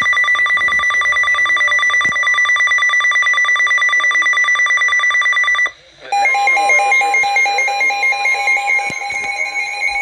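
NOAA weather alert radios sounding their alarms: a loud, rapid, high-pitched beeping that stops after about six seconds, then after a brief gap several radios beep and warble at once in different tones. It is the alert tone a weather radio gives when it decodes an incoming alert.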